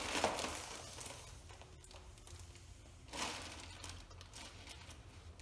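Plastic zip-top bag crinkling as it is handled around a piston, in two short bursts: one at the start and one about three seconds in.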